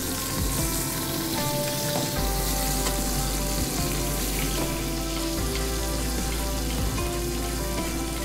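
Skate wing sizzling in butter in a hot frying pan, the butter melting and foaming around the fish with a steady hiss.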